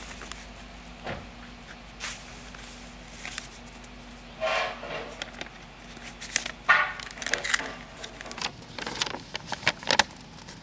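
Paper rustling and crinkling in scattered short crackles as a manila envelope is opened and a folded letter is drawn out and unfolded.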